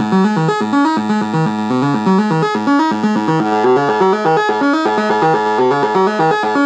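Modular synthesizer sequence: a Pittsburgh oscillator through a Manhattan Analog MA35 high-pass filter with strong resonance and its output fed back into itself, playing a quick repeating pattern of short pitched notes.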